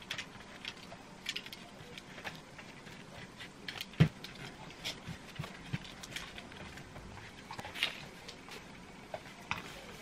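LEGO plastic bricks being handled and snapped together: scattered small clicks and taps, with the sharpest click about four seconds in.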